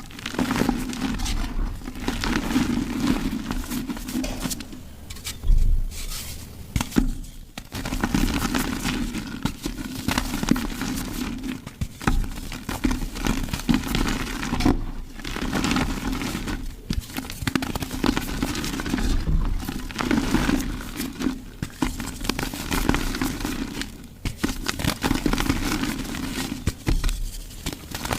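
Mud being crushed and squeezed by hand, a continuous crackling and crumbling full of small sharp clicks. It comes in stretches of a few seconds broken by short pauses.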